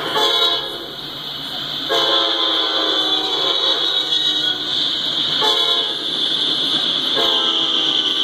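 Norfolk Southern diesel locomotive's air horn sounding a series of blasts as the train passes through a grade crossing: four blasts starting about two seconds apart. Underneath runs a steady high-pitched ringing from the crossing signal's bell.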